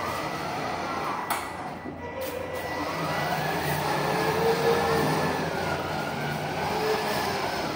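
Battery-powered children's ride-on toy car driving across a concrete floor: its small electric drive motors and gearbox whine, and the pitch rises and falls smoothly as the car speeds up and slows, over the rumble of plastic wheels.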